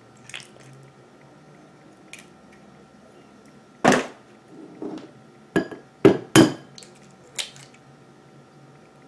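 Raw eggs being knocked against the rim of a ceramic bowl to crack them: a handful of sharp taps, the loudest about four seconds in and a close pair about six seconds in, with a few fainter clicks between.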